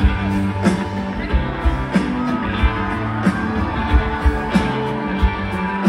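Live rock band playing, with guitar to the fore over a steady drum beat.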